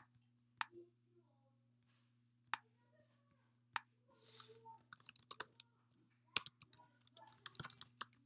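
A few single sharp clicks spaced a second or more apart, then a quick run of computer keyboard keystrokes over the last two seconds as a password is typed, over a faint steady hum.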